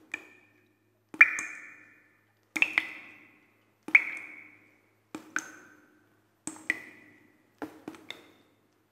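Water drops falling one at a time: a sharp plink about every second and a quarter, each ringing out and echoing briefly as it fades.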